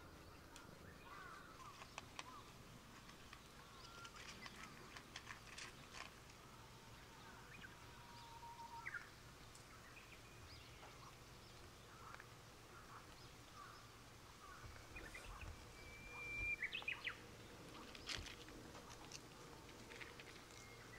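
Quiet outdoor ambience with scattered short bird chirps and a few soft clicks, loudest a little after the middle.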